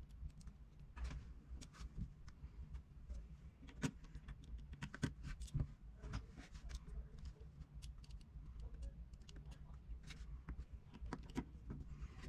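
Scattered faint clicks and taps of a small screwdriver and tiny screws being handled while fitting the LCD screen screws of an iPad mini 2, over a low steady hum.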